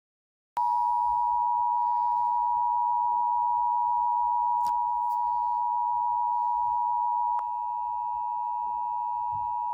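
Emergency Alert System attention signal: a steady two-tone alarm at 853 and 960 Hz, sounding together. It starts about half a second in and holds, with a faint click and a slight drop in level about seven seconds in. Here it alerts listeners to a wildfire warning.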